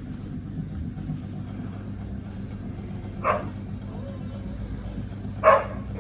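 Old ceiling fan motor humming steadily, with two short spoken words cutting in about three and five and a half seconds in.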